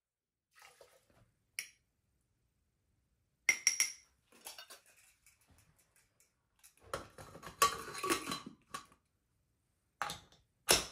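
Metal cookware clinking and clattering as a pressure cooker is closed: a steel cup is set down with a ringing clink, the lid clatters into place on the pot a few seconds later, and the whistle weight clicks onto the vent near the end.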